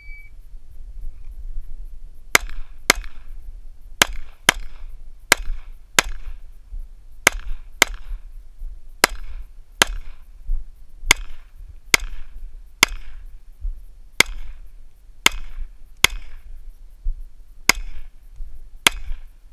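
A shot timer beeps once, then a semi-automatic pistol fires about twenty shots, mostly in quick pairs, with a pause of a second or so between pairs. A low rumble runs underneath.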